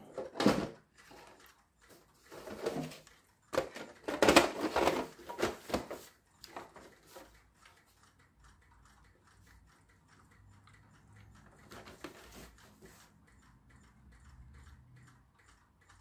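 Hollow plastic knocks and rattles as the body shell of a New Bright Mercedes-Benz SLR McLaren RC toy car is handled and fitted back onto its chassis. The loudest clatter is about four seconds in, with a few more around it, then only faint handling noise.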